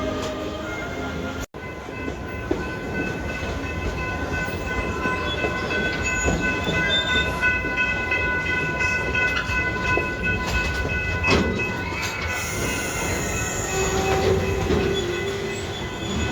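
Amusement-park railway train running along the track with a continuous low rumble. Through the middle a steady high-pitched squeal holds for several seconds, like wheels grinding on a curve. The sound cuts out for an instant about a second and a half in.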